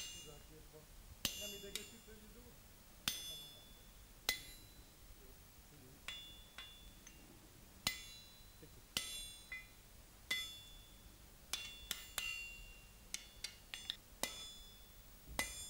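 Hammer blows on a handled hot punch, driving holes through a red-hot iron bar lying on an anvil. Each blow is a sharp metallic clank with a brief ring. The blows come at uneven intervals, some in quick clusters near the end.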